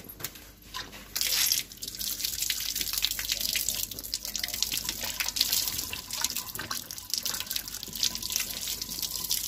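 Water running from an outdoor wall tap and splashing over a hand and the end of a rubber hose being rinsed under it. The flow comes on about a second in and then keeps pouring and splattering.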